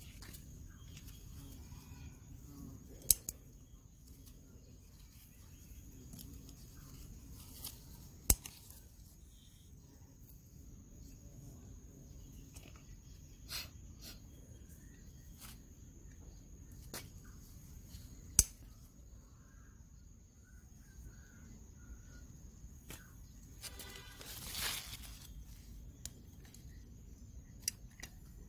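Faint garden ambience: a steady high-pitched insect drone with a low background rumble, broken by three sharp clicks and a few softer ones, and a brief rattling rustle late on.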